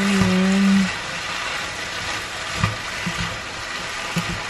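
Diced pork, hotdog and vegetables sizzling in a frying pan as they are stirred with a spatula, with a few low knocks of the spatula against the pan. A short hummed voice is heard at the start.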